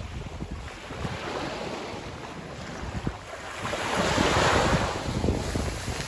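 Black Sea waves breaking and washing up a pebble beach, one wave surging in loudest about four seconds in and then fading. Wind buffets the microphone throughout.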